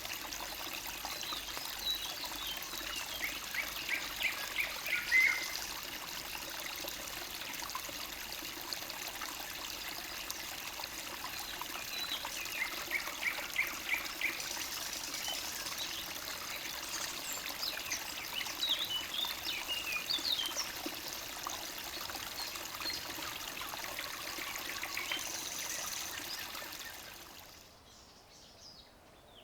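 Forest stream trickling steadily, with songbirds singing over it in several short phrases, some of them runs of quick repeated notes. Near the end the water sound fades away, leaving faint bird calls.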